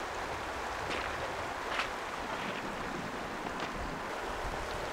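Steady rush of a shallow flowing stream, with a few faint light taps and rustles about one, two and three and a half seconds in.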